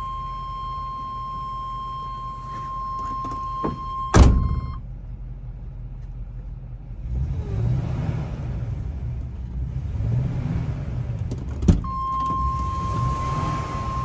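Chevrolet Express bus engine idling, heard from inside the cab. Over it a steady high-pitched warning tone sounds, stops just after a loud thump about four seconds in, and comes back after a sharp click near the end.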